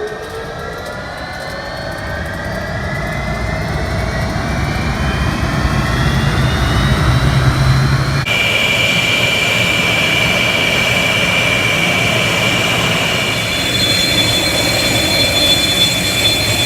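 Jet aircraft flying past at an air show, its engine noise growing louder over several seconds with whining tones sliding upward. About eight seconds in it changes abruptly to a steady loud rush with a high steady whine.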